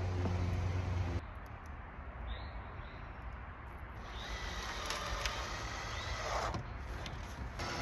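A steady low machine hum cuts off abruptly about a second in. After it, faint high chirps and a few squeaky gliding calls.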